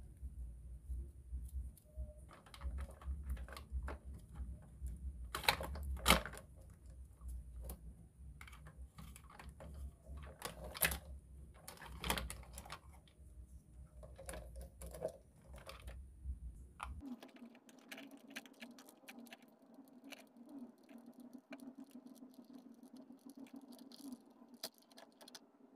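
Light clicks and taps of plastic toy parts and soft handling of play dough as a toy play-dough noodle press is loaded and pressed out. A steady low hum comes in about two-thirds of the way through.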